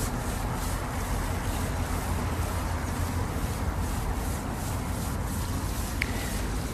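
Wind buffeting the microphone on an open seawall: a steady, uneven low rumble with hiss above it. A single short high tick about six seconds in.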